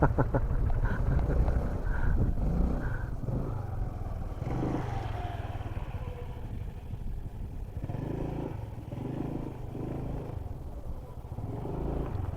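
Motorcycle engine running while riding, its low drone rising and falling in level.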